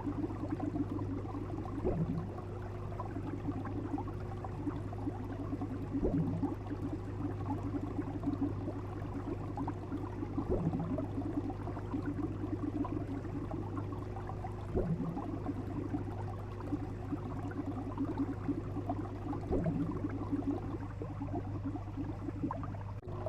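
Fish sound effect: a steady low hum under busy bubbling water, with a short rising blub about every four seconds.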